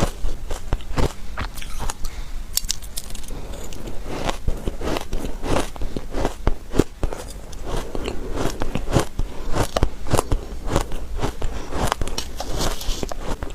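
Soft shaved ice being bitten and chewed close to the microphone: a dense, irregular run of crunches and crackles.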